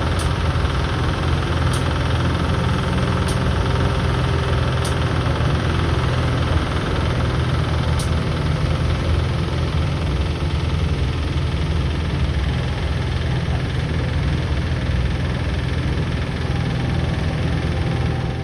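Coal seam crackling and sizzling like food dropped into hot cooking oil, with a few sharp ticks in the first eight seconds, over a steady low rumble. The cause is uncertain; it is put down to vibration setting off friction within the coal.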